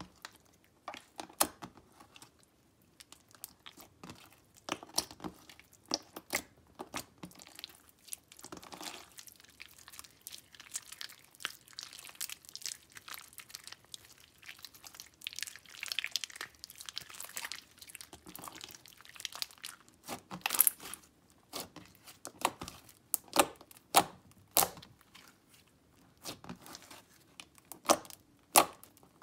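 Hands squishing, stretching and kneading glittery silver slime: irregular sticky pops and clicks as trapped air pockets burst, with a denser crackling stretch about halfway through.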